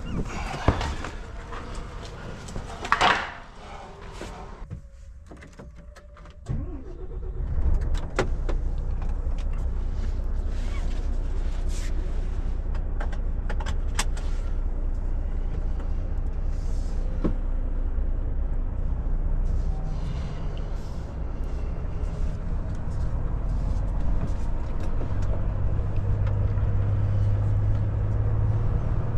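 A few knocks and rustles, then the Volvo FH460's diesel engine comes in about seven seconds in and runs steadily at idle inside the cab. Its low note grows stronger near the end as the truck pulls away.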